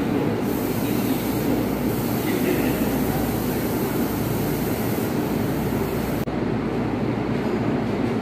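Steady running noise of a Sendai Subway Namboku Line train standing at an underground platform, with the hubbub of a crowd of passengers on the platform.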